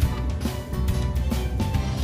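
Background music with a steady beat, a hit about every half second over a strong bass.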